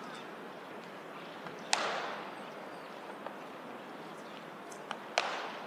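Pitched baseballs smacking into catchers' leather mitts in a bullpen: two sharp pops about three and a half seconds apart, each with a short echo, and a few fainter clicks between.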